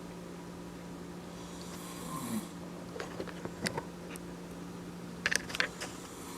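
A man snoring in his sleep: one breathy snore with a falling pitch about two seconds in, over a steady low hum. Several sharp clicks and rustles follow in the second half.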